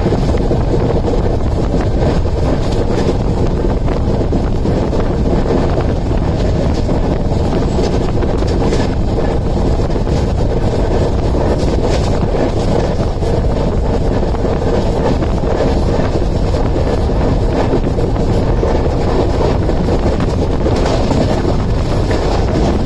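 Wind rushing over the microphone at an open coach door of a fast-moving passenger train, over the steady running noise of its LHB coaches on the rails, with faint irregular clicks.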